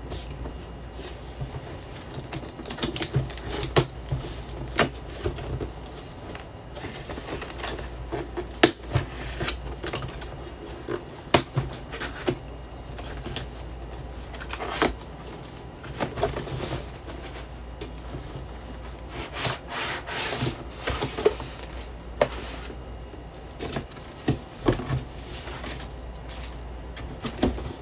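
Cardboard laptop box and its packaging being handled and opened: irregular taps, clicks and scrapes from the flaps and cardboard inserts, with brief rustling of plastic wrap.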